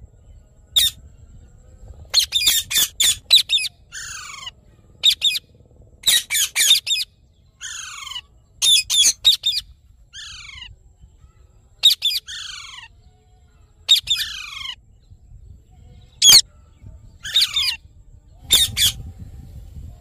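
Indian ringneck parrots calling: repeated shrill squawks in short bouts, mixed with calls that slide steeply down in pitch.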